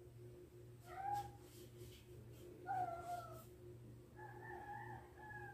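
A domestic cat meowing three times behind a closed door, the last meow the longest, calling for its owner who has just shut the door on it. A steady low hum runs underneath.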